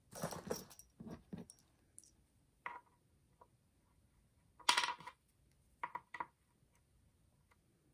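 Small metal screws clinking and clicking as they are handled and set by hand into pre-drilled holes in a drawer panel. A few short, separate clicks, the loudest near five seconds in.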